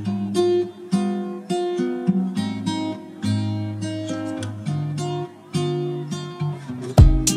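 Background music of an acoustic guitar playing single plucked notes that ring and fade. About seven seconds in it turns louder, with sharp, percussive strokes.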